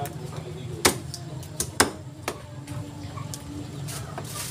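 A knife striking a wooden chopping block as chicken is cut up: two sharp chops about a second apart, with a few lighter knocks around them.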